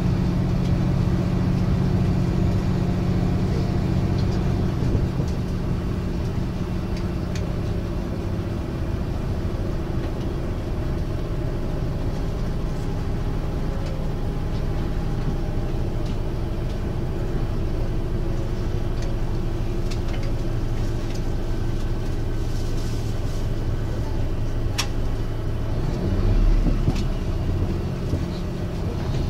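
Running sound heard inside JR Hokkaido diesel railcar KiHa 182-501 (KiHa 183 series, 500 subseries): its high-output DML30HSJ 12-cylinder diesel engine droning steadily together with the rumble of wheels on track. The engine note shifts a little after about five seconds; a sharp click about 25 seconds in is followed by a low thump.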